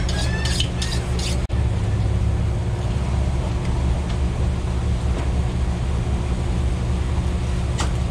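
A fillet knife drawn across a sharpener in several quick strokes, about three a second, stopping about a second and a half in. A steady low mechanical hum runs underneath throughout.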